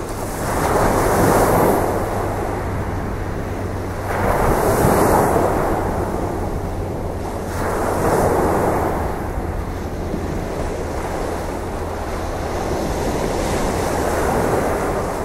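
Sea waves breaking and washing on a beach, the surf swelling and falling away four times.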